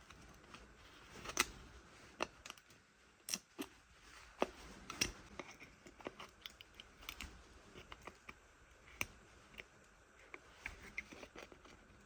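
Irregular light clicks and taps of small hard objects being handled, spaced unevenly, a few a second at most, with faint room noise between them.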